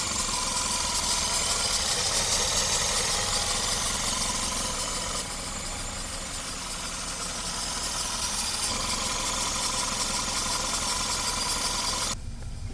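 Audi A3 engine running at idle, recorded close up with a lot of hiss over a low rumble; the car has a cylinder 3 misfire. The hiss drops a little about five seconds in.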